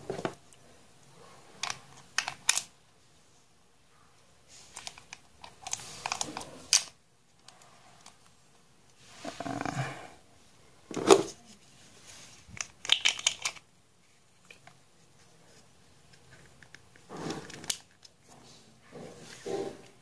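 Handling noises from a baitcasting reel: scattered clicks, taps and rubbing of its plastic and metal parts as the spool is fitted back into the frame. There are quick runs of sharp clicks about two, eleven and thirteen seconds in.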